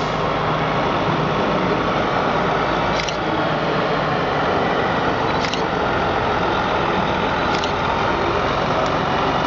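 Heavy recovery truck's diesel engine running steadily as it pulls slowly away, towing a trolleybus. A few faint short clicks come through at intervals.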